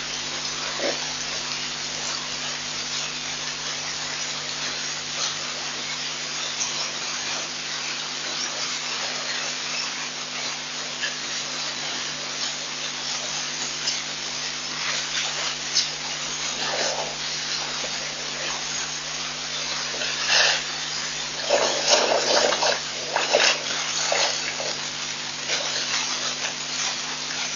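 Steady hiss with a faint electrical hum from an outdoor webcam microphone. Several short bursts of water sloshing and splashing come in the second half, clustered a little past the middle.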